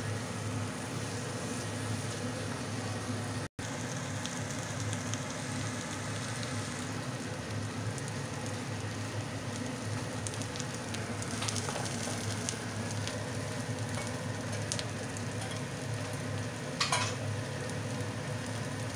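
Semolina halwa frying in desi ghee in a nonstick pan: a steady low sizzle, with a wooden spatula scraping and tapping against the pan as it is stirred. One louder scrape near the end.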